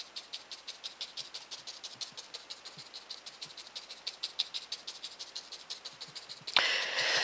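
Paint being dabbed through a stencil onto paper, a quick regular tapping of about six or seven dabs a second. A sudden loud breathy rush of noise cuts in near the end.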